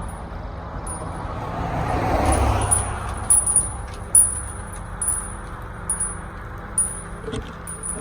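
Lowboy truck's winch and engine running as a bus is pulled up onto the trailer deck, with a swell of noise about two seconds in and light metallic ticks and clicks through the second half.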